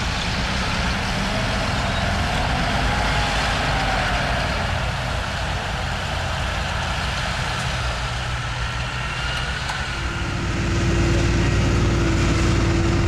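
Tractor engine running steadily with a low rumble, growing louder about ten seconds in as a steady whine joins it.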